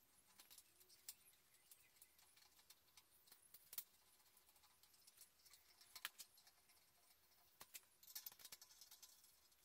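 Faint, scattered metallic clicks and ticks of a hand tool working the mounting screws of a stepper motor on the router's aluminium end plate, the sharpest click about six seconds in.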